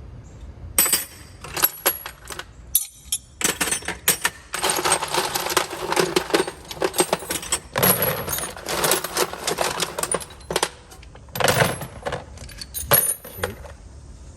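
Loose steel sockets and hand tools clattering and clinking together as they are picked through in a toolbox drawer and dropped into bins, in a run of sharp clicks with a busy stretch of continuous rattling in the middle.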